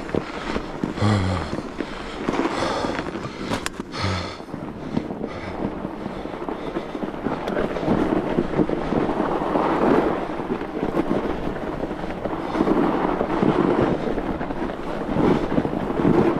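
Fat bike riding over packed snow: the wide tyres crunching and crackling on the snow, with rattles and clicks from the bike over the bumps and a sharp click about four seconds in.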